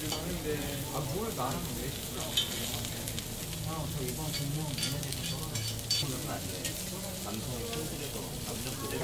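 Lamb sizzling steadily on a hot grill, with scattered light clicks.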